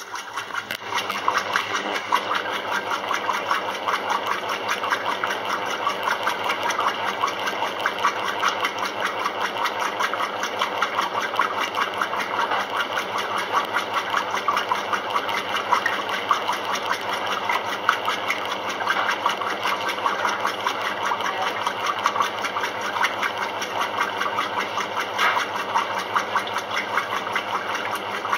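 Maytag Commercial top-load washer agitating a full tub of water and clothes: a steady mechanical drive drone with a fast, even chatter that settles in about a second after starting.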